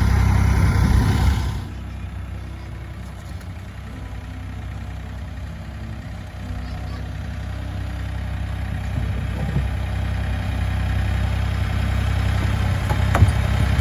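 Tractor engine idling steadily. A louder rush of noise over the first second and a half cuts off, and a single sharp knock sounds about a second before the end.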